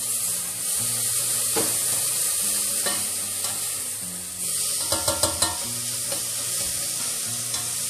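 Chopped onion and garlic sizzling in olive oil in a stainless steel pot, stirred with a metal spoon that scrapes against the pan, with a few quick taps about five seconds in.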